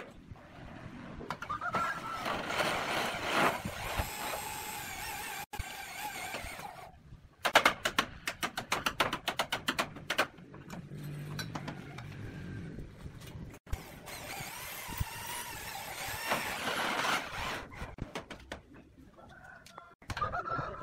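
Roof tiling work: clattering and knocking of roof tiles and hand tools on a steel batten frame, with a dense run of quick sharp clicks and knocks about halfway through.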